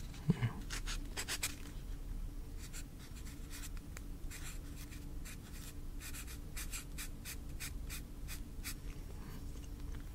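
Handwriting on paper close to the microphone: short scratchy strokes in quick, irregular runs.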